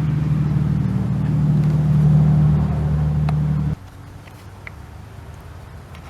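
An engine running steadily at idle with a low hum, then cutting off suddenly a little over halfway through. A few faint clicks follow.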